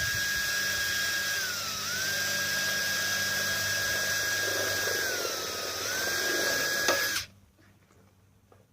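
Power drill running as holes are drilled in the birdhouse's roofing material, a steady high motor whine that sags in pitch twice as it loads up, then cuts off suddenly about seven seconds in.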